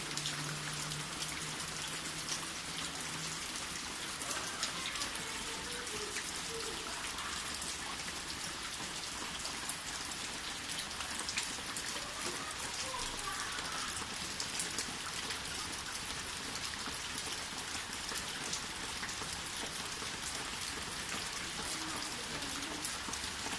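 Steady rain falling, a constant hiss with many separate drop hits ticking through it.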